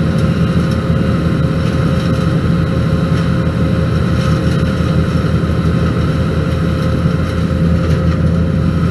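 Kubota R430 articulated wheel loader's diesel engine running loud and steady, a low drone with a thin steady whine over it.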